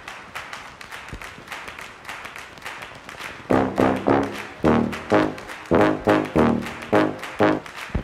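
Outro background music: a soft steady beat, joined about three and a half seconds in by loud chords repeating on the beat.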